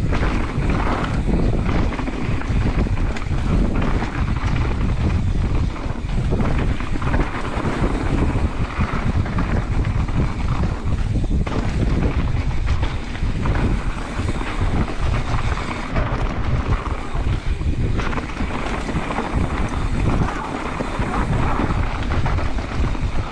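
Wind rushing and buffeting over the microphone of a camera on a mountain bike riding fast down a dirt trail, mixed with the uneven rumble of the bike over rough ground.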